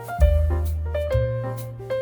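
Background music: a piano or keyboard tune over a steady bass and a regular beat.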